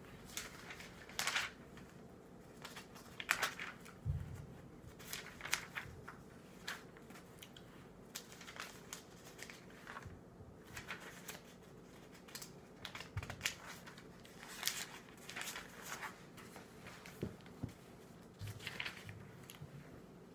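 Faint, irregular rustling and handling noise: siddur pages being turned and prayer-shawl fabric shifting, with a few soft low thumps.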